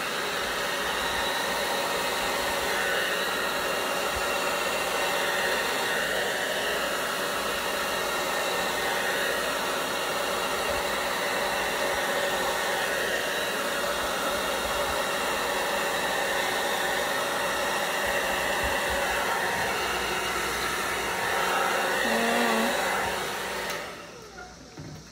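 Handheld hair dryer blowing steadily, spreading wet acrylic paint across a canvas. It is switched off about a second before the end.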